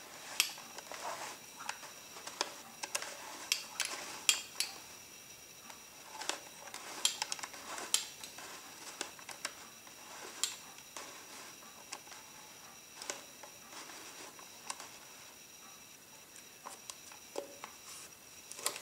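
Irregular small clicks, taps and rubbing from hands handling an old Kodak roll-film camera and its metal fittings.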